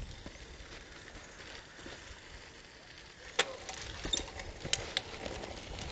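Bicycle rolling along a rutted dirt road: a low, even rustle, with one sharp knock about three and a half seconds in and a few lighter clicks and rattles after it.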